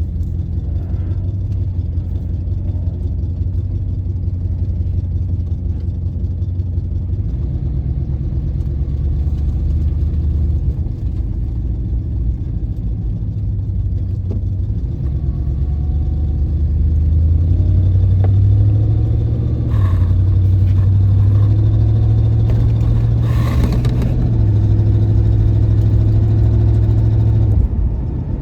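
1996 Chevrolet Impala SS's LT1 V8 engine and exhaust running while driving, the engine speed rising and falling several times and louder in the second half, with two short noisy bursts. The owner suspects an exhaust leak.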